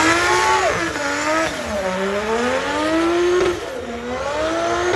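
Drift car's engine revving hard as it slides through a corner, the pitch climbing and dropping several times as the driver works the throttle.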